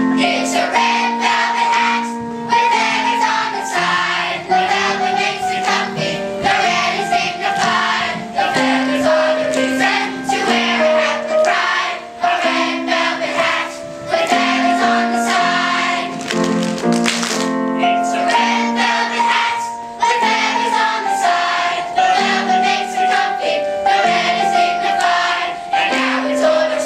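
A large children's chorus singing a song together in unison, with music throughout.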